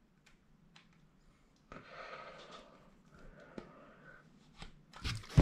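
Near silence at first, then faint breathing and a few small, sharp clicks.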